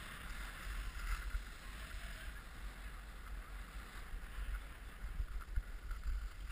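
Skis sliding over packed snow with a steady hiss, and wind rumbling on the microphone as the skier moves.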